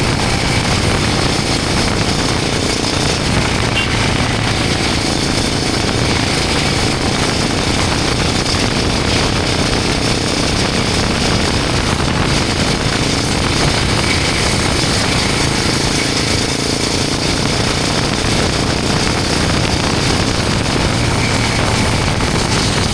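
Royal Enfield Himalayan 450's single-cylinder engine running steadily through a Norifumi Long aftermarket exhaust with its dB killer fitted, under a steady rush of noise.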